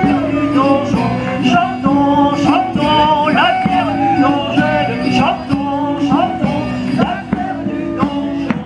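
A song with a man singing over instruments, held up by a steady low note.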